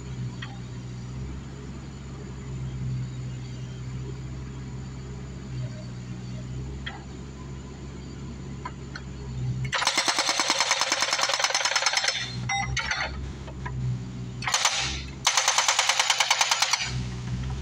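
Bobcat 331 mini excavator's diesel engine running steadily, then its hydraulic breaker hammer pounding concrete in rapid blows, about ten a second. The blows come in bursts over the last several seconds, with short pauses between.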